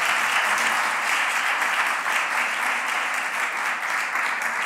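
Small audience applauding steadily.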